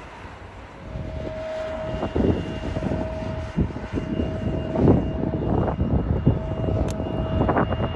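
Airliner jet engines running, a steady whine over a low rumble that grows louder about a second in, with irregular surges in the rumble.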